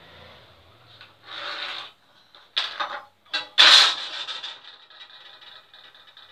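A pencil scratching along a metal straightedge on plywood, then several short scrapes and rubs on the plywood sheet, the loudest a little past the middle, as the straightedge is moved off the board and a large drawing compass is brought onto it.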